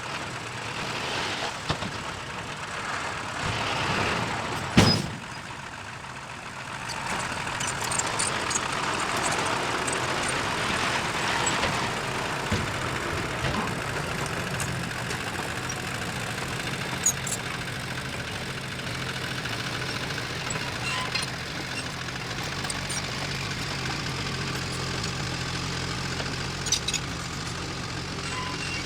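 Diesel engine of heavy earthmoving machinery running steadily, with a single sharp bang about five seconds in and a few light clicks later.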